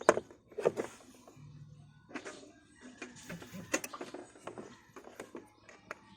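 A series of irregular sharp clicks and knocks, the loudest right at the start and about a second in.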